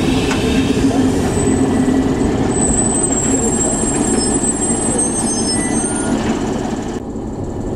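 SKPL ex-DB class 614 (SN84) diesel multiple unit rolling slowly alongside the platform, its diesel engine running steadily. Thin high-pitched brake squeals sound from about two and a half to six seconds in as the train brakes.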